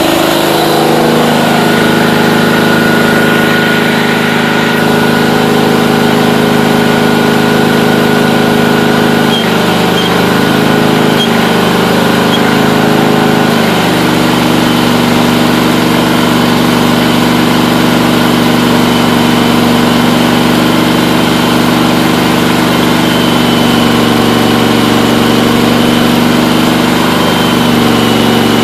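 Allis-Chalmers B-110 garden tractor engine running steadily, driving the car-alternator welder off its front PTO. Its note wavers from about 9 to 14 seconds in, then settles lower and steady.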